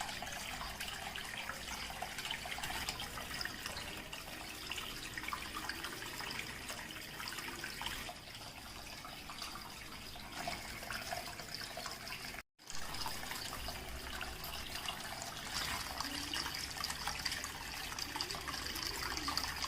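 Water trickling and splashing steadily down a small homemade cement waterfall fountain. It cuts out briefly about twelve seconds in.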